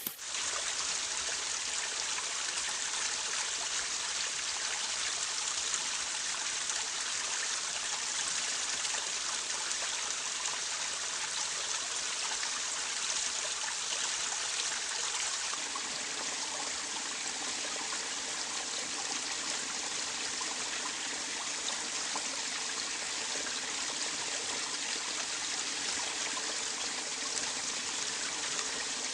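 Stream water running and trickling steadily, with a slightly fuller, lower rush from about halfway through.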